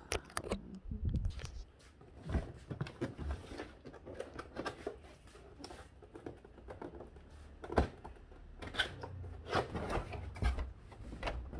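Handling noise from unpacking an airsoft rifle and its accessories: irregular clicks, knocks and rustling, with a sharper knock about eight seconds in.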